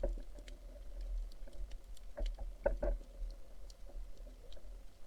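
Steady low rumble with scattered faint clicks and taps, a few louder ones about two to three seconds in.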